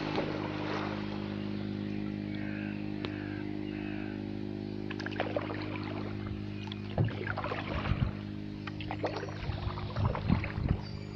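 Kayak paddle dipping into calm floodwater, with irregular splashes and drips that grow busier in the second half, over a steady low hum.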